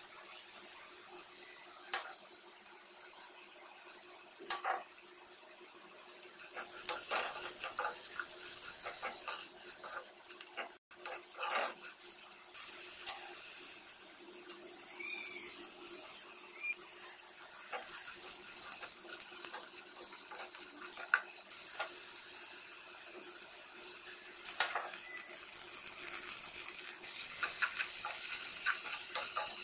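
Onions and curry leaves frying in hot oil in a pot, a steady sizzle, with a metal spoon now and then scraping and knocking against the pot.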